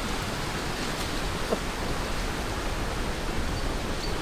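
Steady rushing of a fast-flowing river over rocks and small rapids.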